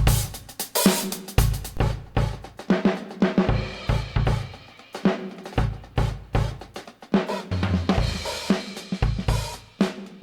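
Drum kit playing a beat: kick drum thumps, snare hits and cymbals, starting suddenly.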